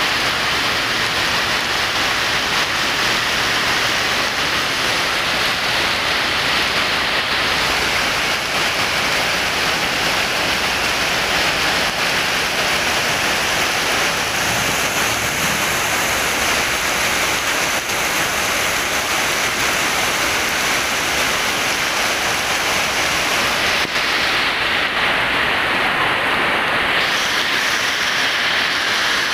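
Muddy flash-flood water rushing down a street, a loud steady rush of water.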